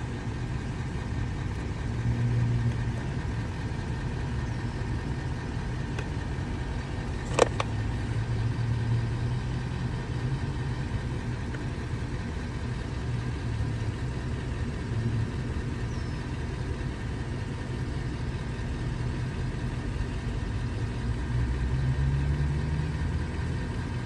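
A steady low engine rumble, as of an idling engine, with one sharp click about seven seconds in.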